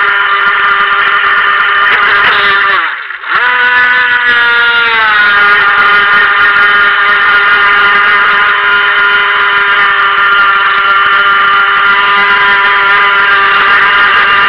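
Brushed 'silver can' electric motor of an RC boat whining steadily at speed. About three seconds in, the pitch drops and the sound nearly cuts out as the throttle comes off, then the whine picks back up and settles.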